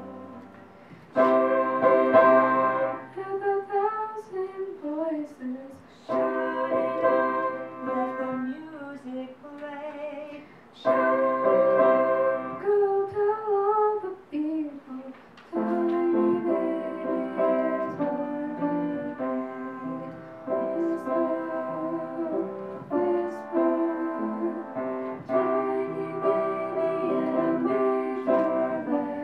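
Woman singing with piano accompaniment, in phrases of a few seconds with short lulls between them in the first half, then more continuously.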